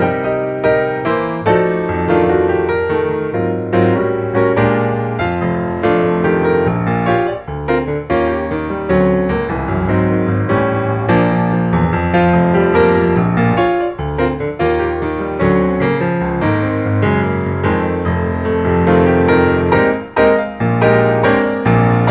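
Piano music with a steady flow of notes over sustained chords.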